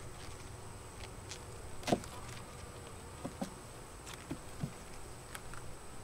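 Honeybees buzzing at an open hive, with brief louder buzzes from single bees passing close. A few light wooden knocks and clicks as a hive frame is worked loose and lifted out, the sharpest about two seconds in.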